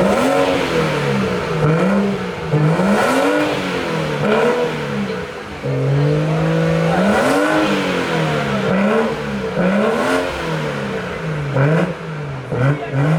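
BMW 340i's turbocharged inline-six revved again and again through an exhaust with both resonators removed, the pitch climbing and dropping about once a second, with one longer held rev about halfway and a few sharp cracks near the end.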